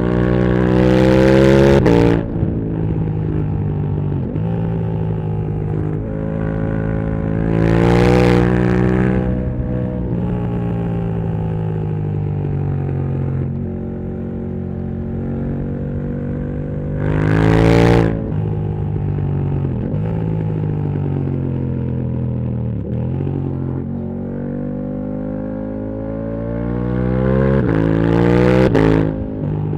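KTM 1290 Super Duke R V-twin with a full titanium Akrapovic exhaust, ridden hard: the revs climb and step down through gear changes, with four loud pulls, about 1, 8, 17 and 28 seconds in, that each cut off sharply.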